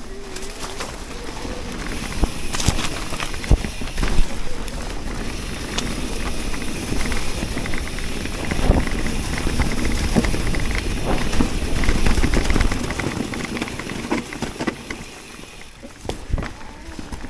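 Electric mountain bike riding over a leaf-covered forest trail: tyres rolling over the leaves, the frame and drivetrain rattling with frequent short clacks over bumps, and a steady rumble of wind on the chest-mounted camera's microphone. It gets quieter briefly about fifteen seconds in.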